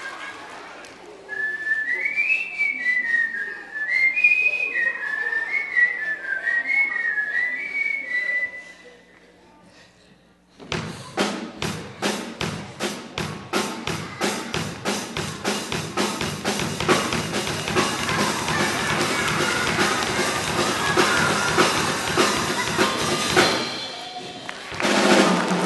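A short whistled tune of quick stepping notes; after a brief quiet gap, music with a steady drum beat starts about ten seconds in, dipping briefly near the end.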